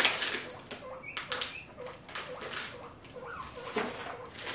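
Pet guinea pigs squeaking and wheeking in short high calls, begging at the sight of fresh vegetables, over the crinkle of a plastic grocery bag being handled.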